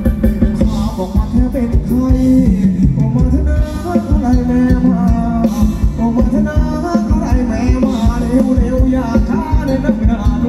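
Loud Thai ramwong dance music played by a live band, with a steady driving beat and a melody line over it.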